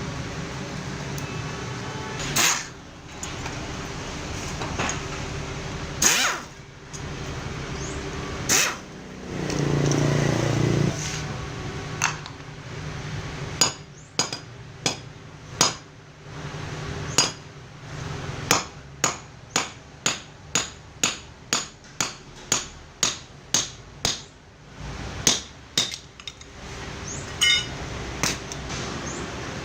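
Hammer blows on metal: a few separate strikes, then a long fast run of about two blows a second, over a steady low hum.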